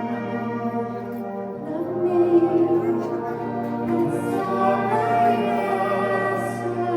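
A live navy band plays sustained ensemble music with a singer over it, at a sound-check rehearsal.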